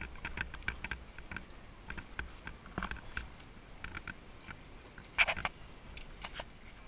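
Scattered light clicks and clinks over a low background hum, with one louder sharp sound about five seconds in.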